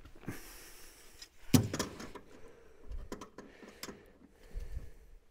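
Scattered metallic clicks and knocks of a hand tool working steel front-suspension parts as a greased bolt is twisted into line through the upper wishbone arm. The loudest is a sharp knock about a second and a half in.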